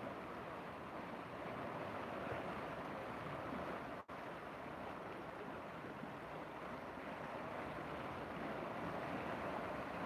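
Choppy, muddy river water, small waves washing and splashing against the bank in a steady rush. The audio drops out for an instant about four seconds in.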